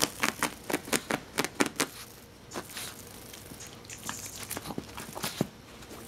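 A miniature pinscher scrabbling at a cicada on carpet: a quick run of sharp clicks and scratchy rustles in the first two seconds, then a few scattered clicks.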